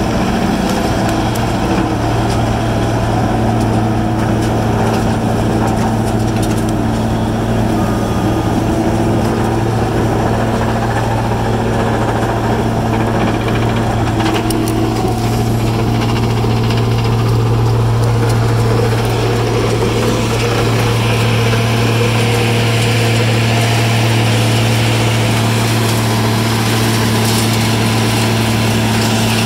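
A Shred-All D5600 horizontal belt-feed grinder runs steadily under load, grinding yard waste and brush, with a constant low engine hum. A skid steer loading it runs alongside.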